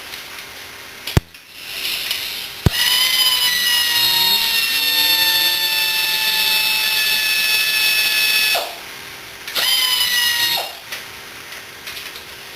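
Hand-held electric power tool motor spinning up and running for about six seconds, its pitch sliding slowly, then cutting off abruptly. About a second later it runs again, briefly. A sharp click comes just before the first run.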